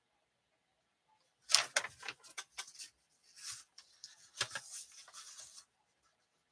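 Irregular clicks, taps and rustling of small objects being handled close to the microphone. They start about a second and a half in, with a sharper click near the start and another past the middle, and stop a second before the end.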